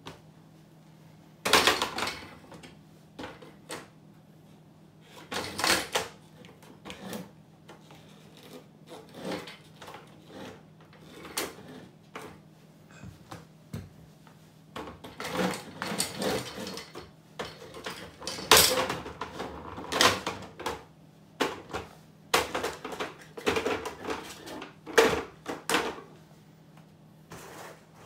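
Cofra steel-toe rubber boots stepping and stomping on hard plastic toys, a toy forklift and plastic blocks, on a tiled floor: irregular plastic knocks, creaks and clatters, some single and loud, some in quick clusters. A faint steady low hum runs underneath.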